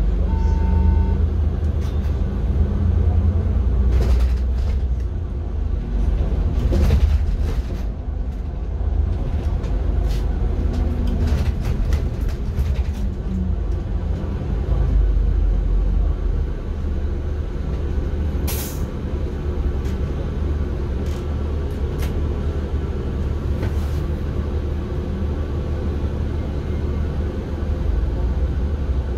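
City bus running, heard from inside the passenger cabin: a steady low engine and road rumble with occasional rattles and knocks, and a short hiss about two-thirds of the way through.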